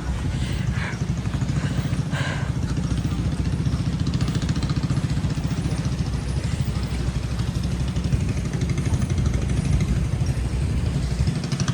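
Rumely OilPull tractor engine running steadily at idle, with a rapid, even exhaust beat.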